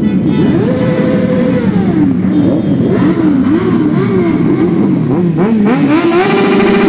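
Superbike engines being revved: a held rev about a second in that falls away, then a run of quick throttle blips rising and falling about twice a second, and another held rev near the end, over a steady idle.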